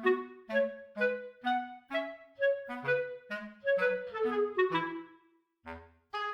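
Background music: a light instrumental tune of short separate notes at a steady pace, with a brief pause near the end.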